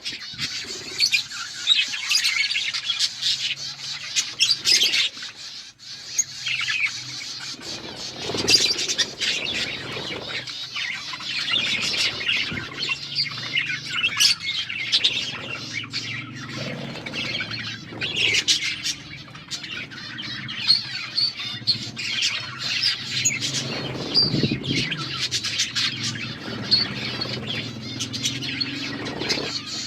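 A flock of budgerigars chattering and chirping without a break, with many short, sharp calls mixed in.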